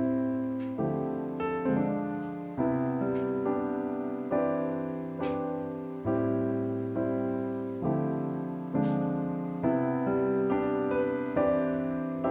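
Background piano music: gentle notes and chords struck and left to fade, about one a second.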